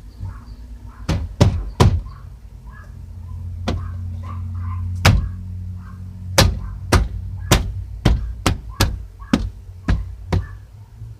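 Hand blows knocking the car's inner door trim panel into place, about fourteen sharp knocks at uneven intervals, some in quick pairs: the panel's push-in retaining clips are being popped into the door.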